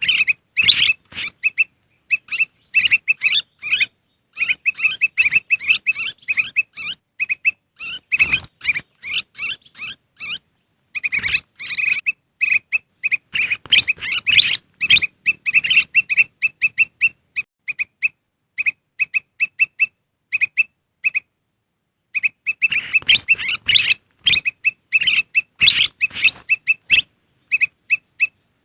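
Recorded lure call of kutilang emas bulbuls: a busy, rapid chatter of short chirping notes in clustered bursts, broken by brief pauses, with one longer pause about three-quarters of the way through. It is played to draw wild birds in.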